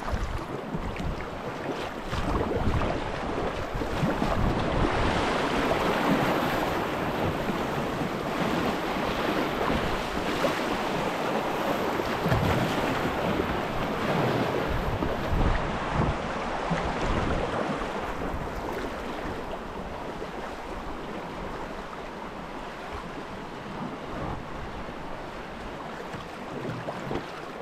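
Tidal rapids: churning, rushing whitewater, with wind buffeting the microphone. Louder for the first half, easing off after about eighteen seconds.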